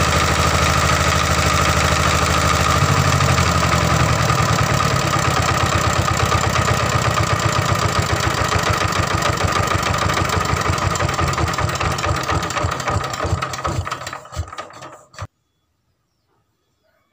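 Stationary diesel engine of a rice huller running steadily, its injection pump delivering fuel again after a blockage at the delivery valve was cleared. About ten seconds in it is shut down: the firing beats slow and spread apart until the engine stops a couple of seconds before the end.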